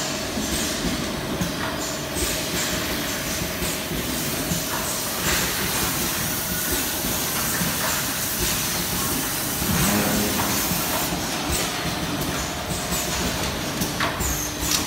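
Automatic oil-filling machine and its conveyor running: a steady mechanical din with scattered clicks and clatter and a faint steady hum.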